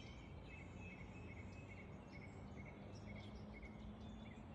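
Songbirds chirping: quick series of short repeated chirps over steady, quiet outdoor background noise with a low hum.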